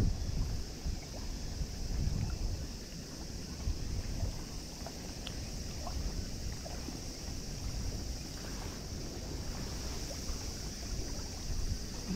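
Wind noise on the microphone over open water: an uneven low rumble, with a faint steady high hiss and a few small clicks.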